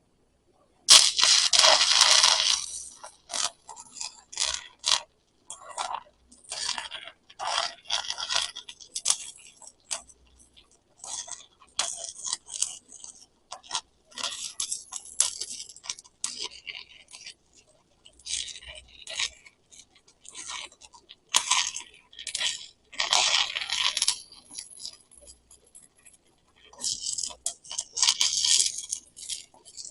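Stick welding with a 7018 electrode: the arc crackles in irregular bursts, with short breaks between them.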